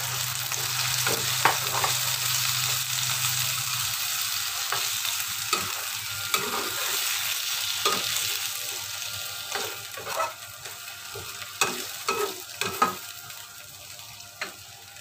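Jengkol and galangal sizzling in a hot wok just after water has gone in, the sizzle fading steadily, while a metal spatula stirs and scrapes with scattered clicks and knocks against the pan.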